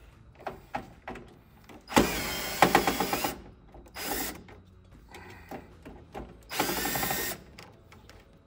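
Hercules cordless drill/driver backing out the screws that hold the printer's air pressure pump. It runs in three bursts: a longer one ending in rapid clicking, a short one, and another medium one, with small clicks of screws and hands between.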